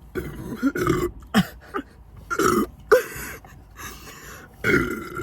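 Several loud burps in a row from a person who has been chugging Sprite, the gas of the carbonated soda coming back up. There is a long one at the start, then shorter ones, and another near the end.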